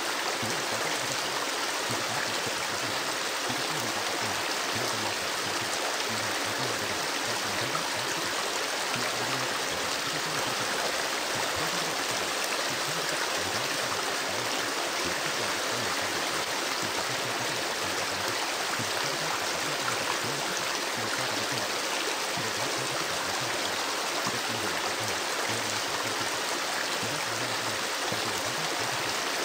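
River or stream water flowing, a steady even rush that does not change.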